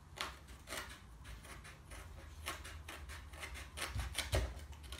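Light scraping, rubbing and clicking of hands working at a cut-out hole in a hardboard table top with a paper honeycomb core, with a couple of dull knocks about four seconds in.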